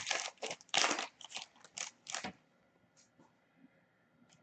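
A hockey card pack's foil wrapper being torn open and crinkled in quick crackling bursts for about two seconds, then only a few faint ticks of cards being handled.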